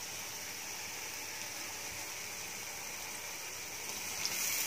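Chopped onions sizzling steadily in hot oil in a kadhai. A little past four seconds in, chopped tomatoes are tipped into the pan and the sizzle gets louder.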